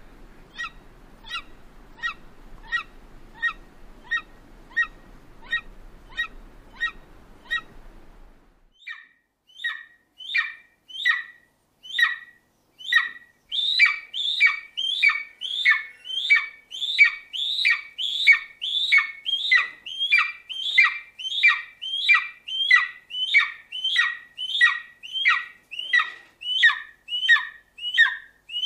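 Golden eagle giving a long series of short, high yelping calls, each falling in pitch, about one and a half a second. About a third of the way in, the background hiss stops and the calls come faster and louder, about two a second.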